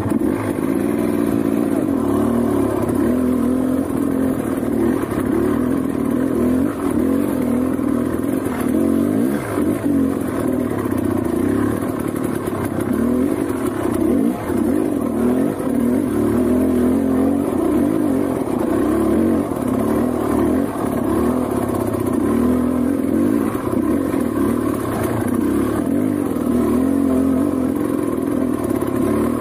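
Motorcycle engine running steadily on a trail ride, its revs rising and falling.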